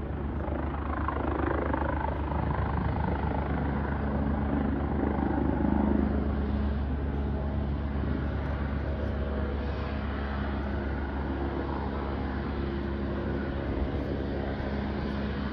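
Aircraft engines running steadily: a continuous drone with a low hum underneath, growing a little louder over the first few seconds and then holding level.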